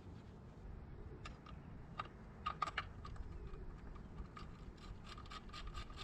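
Faint metallic clicks and ticks of hand tools working the motorcycle's chain-guard bolts, with a quicker run of ticks about five seconds in.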